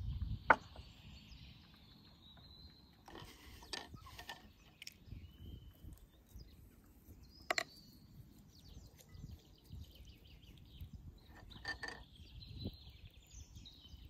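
Kitchen utensils being handled while a raw goose is basted with marinade: a sharp clink against a bowl about half a second in, then a few scattered soft knocks and clicks as a silicone brush works over the bird in a glass bowl. Birds chirp in the background.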